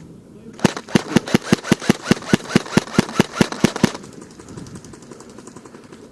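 Airsoft gun firing a rapid, even string of about twenty shots, roughly seven a second, for about three seconds, then stopping.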